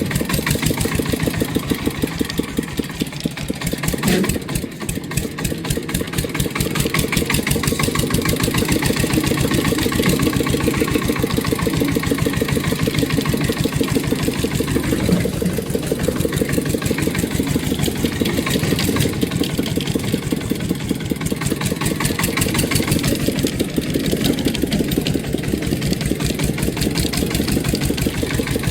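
A small engine idling with a fast, steady knocking beat that wavers slightly and dips briefly about four seconds in.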